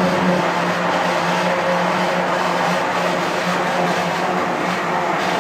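Industrial laundry machinery, washer extractors, running: a steady machine hum with a constant noise over it.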